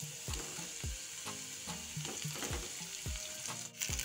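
Hot oil sizzling in a kadhai as cut idli pieces are tipped into the fried onion and spice tempering. A steady beat of background music plays underneath.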